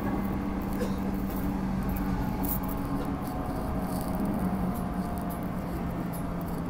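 Electric train running, heard from inside the carriage: a steady rumble of wheels on rail with a low hum and a fainter whine that slides slowly lower, plus scattered light ticks.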